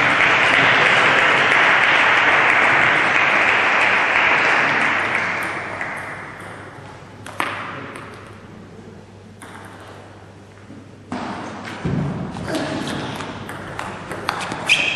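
Spectators applauding after a table tennis point, the clapping fading away over about six seconds. Then come a few single sharp clicks of the ball bouncing, and a quick run of ball-on-paddle and ball-on-table hits near the end as a new rally starts.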